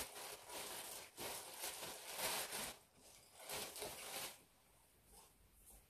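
Plastic garment packaging crinkling and rustling as it is handled and a dress is pulled out. It comes in a few bursts over about four seconds, then goes faint.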